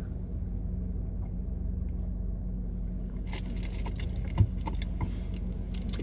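Steady low engine hum inside a car's cabin. In the second half there is a scatter of light clicks and rattles, with a single short knock about four and a half seconds in.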